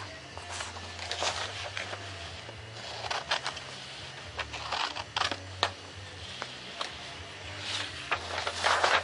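Foam board being handled and trimmed: irregular scraping and rustling with sharp clicks, loudest near the end, over a steady low hum.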